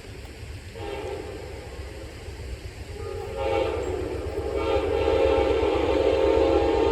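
Locomotive air horn blowing as a train approaches. A first note comes in about a second in, then a louder, long blast from about three and a half seconds in that holds on. The whole sound grows louder as the train nears.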